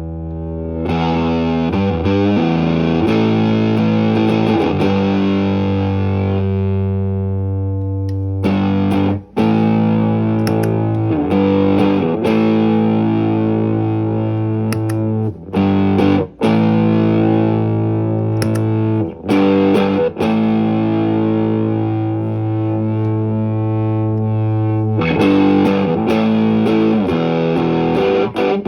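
Electric guitar played through a Caline CP-47 Pressure Tank compressor pedal and an overdrive pedal: long, distorted chords left to ring and sustain, broken by a few short stops.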